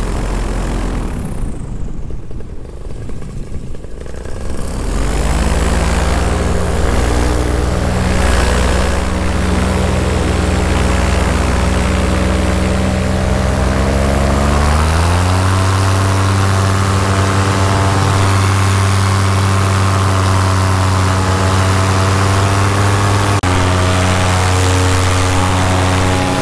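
Paramotor engine and propeller running in flight, throttled back for the first few seconds, then throttled up. Its pitch climbs again about fifteen seconds in and steps up once more near the end.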